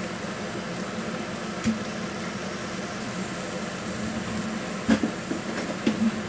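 Steady mechanical hum with an even hiss from kitchen cooking noise, broken by a single light click about two seconds in and a few light knocks near the end.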